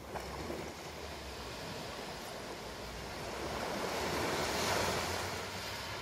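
Small sea waves breaking and washing up a shingle beach, a steady wash that swells to its loudest about four to five seconds in and then eases.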